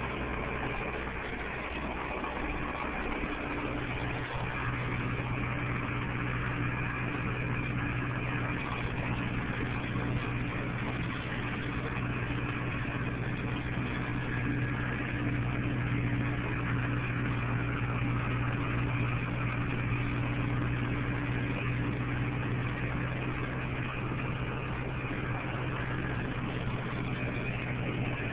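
Tractor engine running steadily while towing a wide field implement, heard from inside the cab. Its low hum strengthens a few seconds in and then holds steady.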